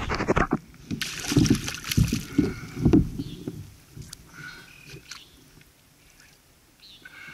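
Water sloshing and splashing around a kayak on calm shallow water, loudest in the first three seconds, then quieter.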